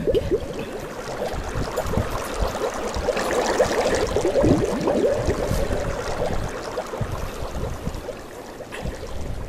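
Bubbling, gurgling water sound effect: a dense run of quick bubble pops over a steady tone.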